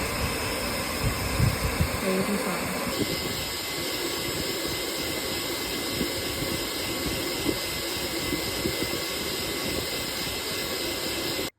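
Hair dryer blowing steadily, a loud even rush of air with a few light knocks of handling, cutting off suddenly near the end.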